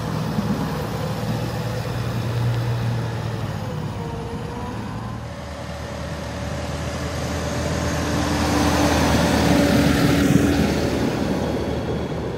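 A vehicle engine running steadily, growing louder to a peak about ten seconds in and then easing off, like a vehicle passing close by.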